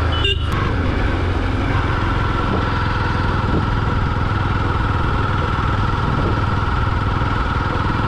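Motorcycle engine running steadily while riding, with a brief drop in the sound just after the start.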